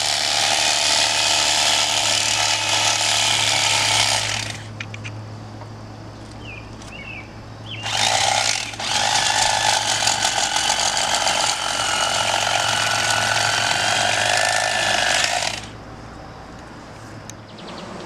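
Electric fillet knife buzzing with a rapid rattle, switched on for two long spells of about four and eight seconds.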